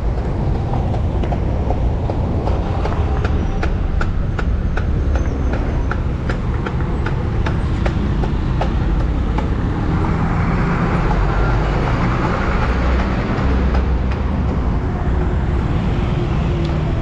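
Heavy city street traffic: vehicle engines rumbling steadily, with a quick run of sharp clicks in the first few seconds and a hissing noise that swells up about ten seconds in and fades again.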